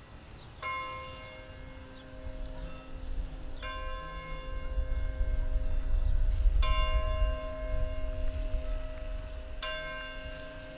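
A church tower bell strikes four times, about three seconds apart, each stroke ringing on until the next. Behind it there is a faint, steady, evenly pulsing high chirp, and a low rumble swells in the middle.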